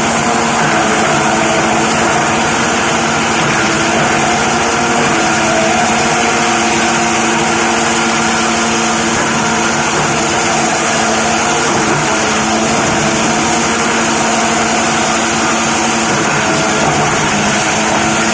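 Plastic crusher machine running steadily: a loud, even mechanical drone that holds one pitch throughout.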